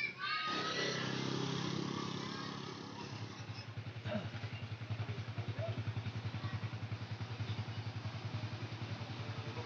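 Small motorcycle engine running with a quick, even pulsing beat as a scooter comes along the lane.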